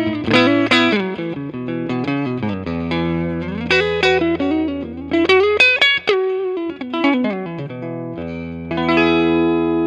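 Electric guitar played through the Sunset Drive overdrive pedal: held chords, then quick single-note lead runs with string bends, ending on a ringing chord.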